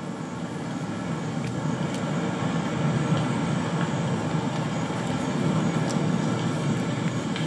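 Low, steady rumbling ambience playing as a soundtrack to a jungle scene, slowly swelling in level, with a few faint ticks above it.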